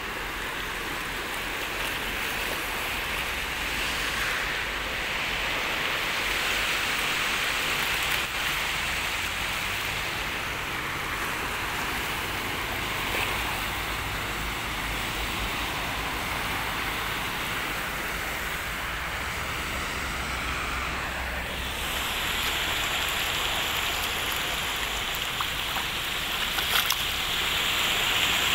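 Floodwater rushing steadily over a street, with cars driving through it and their tyres splashing. The rush grows brighter about three-quarters of the way through.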